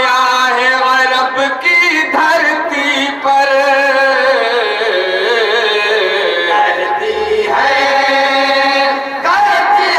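A group of men chanting an Urdu naat in unison, holding long drawn-out notes, with the melody sliding downward in the middle.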